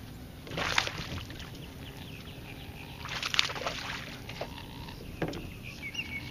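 A hooked largemouth bass splashing at the surface during the fight, two splashes about three seconds apart.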